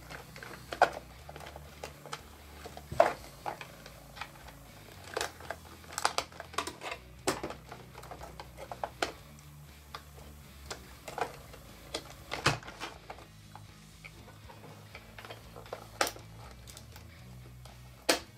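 Irregular light clicks and taps of handling: the turret ring gear and its cable bundle being worked through and knocked against the opened RC tank hull, with a few sharper clicks.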